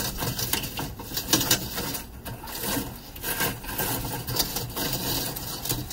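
Used lump charcoal scraping and clinking irregularly as it is gathered by hand into a steel Vortex cone sitting on the charcoal grate.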